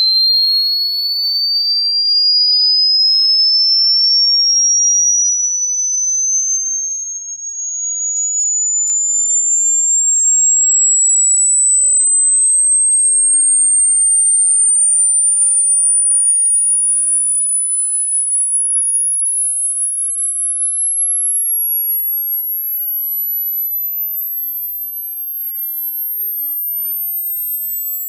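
Electronic pure tone sweeping slowly and steadily upward in pitch, from a high whistle to a very high, thin whine: a synthetic sweep played as a repellent meant to drive away crickets. Over the last few seconds a second, fainter tone falls in pitch against it.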